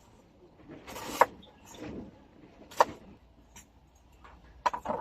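Knife slicing through an onion on a cutting board: a few sharp, crisp cuts spaced a second or two apart, two of them close together near the end.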